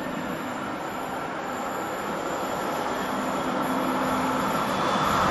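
Electric locomotive-hauled passenger train approaching along the track. Its running noise grows steadily louder, with a faint steady hum.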